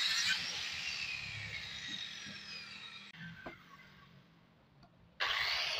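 Handheld circular saw ripping through a board, then released: its whine falls in pitch and fades as the blade spins down over a few seconds. After a click and a quiet stretch, the saw is running at full speed again, starting abruptly near the end.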